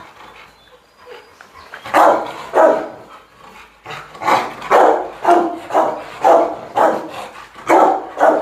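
A dog barking over and over, about two barks a second. The barking starts about two seconds in, after a short lull.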